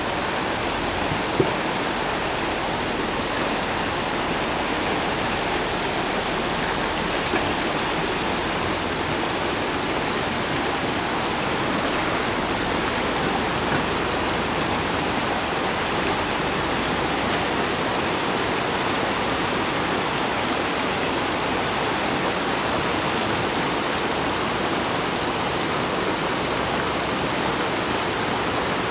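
Steady rushing of a rocky mountain creek, an even hiss of water without let-up, with a brief sharp knock about a second and a half in.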